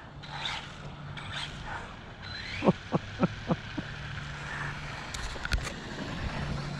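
Arrma Granite RC truck's brushless 3200 kV motor giving several short rising whines as it is driven in quick bursts. A quick run of short knocks comes near the middle, with a couple of sharp clicks later.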